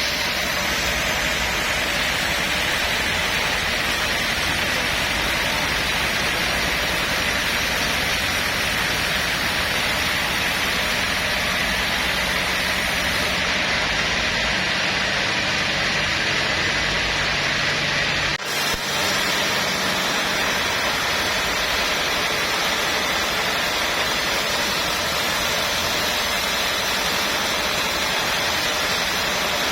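Sawmill machinery running steadily: a loud, even mechanical noise with a low hum underneath, broken by a sharp click about eighteen seconds in.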